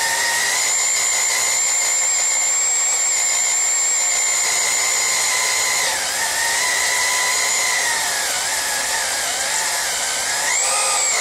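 DeWalt electric drill running slowly, boring through half-inch steel with a black-oxide bit under heavy hand pressure. It makes a steady whine whose pitch sags about halfway through and wavers near the end as the load on the bit changes.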